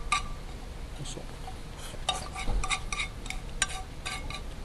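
A metal eating utensil scraping and clinking against a metal cooking pan. There are a few scattered clinks, then a quick run of sharp clinks in the second half.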